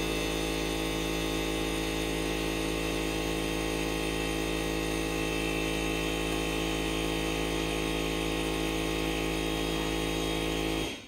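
Steady machine drone with a strong low hum and several fixed tones above it, cutting off abruptly near the end.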